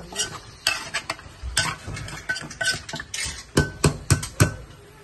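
Metal spoon clinking and scraping against a cooking pot while stirring, with irregular knocks, some leaving a brief metallic ring.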